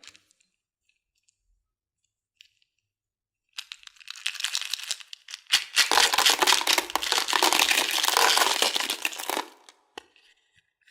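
Plastic candy packaging crinkling and tearing, a dense crackle that starts about three and a half seconds in, grows loud about two seconds later and stops near the end.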